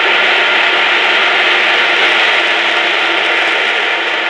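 GE J79 turbojet engine running on a test stand: a steady rush of jet noise with a faint whine, easing slightly in level about halfway through.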